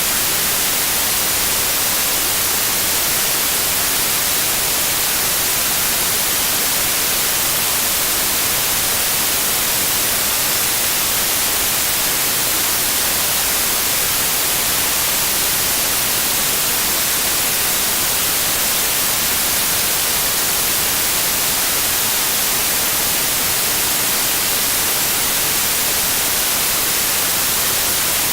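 Steady white noise, an even hiss that does not change.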